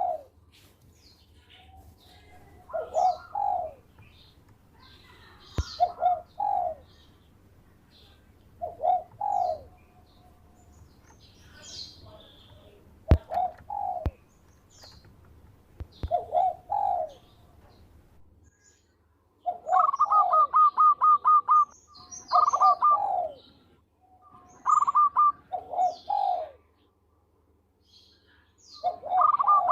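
Zebra dove (perkutut) cooing, one short phrase every few seconds. From about twenty seconds in, the phrases come faster, as quick runs of clipped notes. A few sharp clicks fall in the first half.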